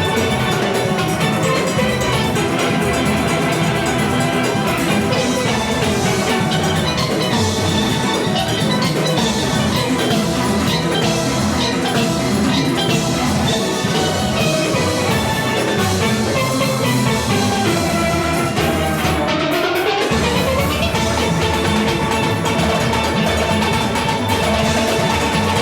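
Full steel orchestra playing, steel pans over drums. About three-quarters of the way through, a fast run sweeps down and back up while the low end briefly drops out.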